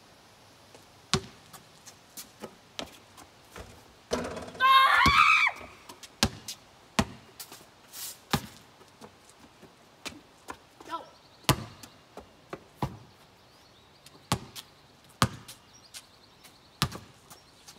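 A basketball bouncing and thudding in short, sharp knocks at an uneven pace, roughly one a second, as it is dribbled and shot. About four seconds in comes a loud, wavering vocal cry of about a second and a half.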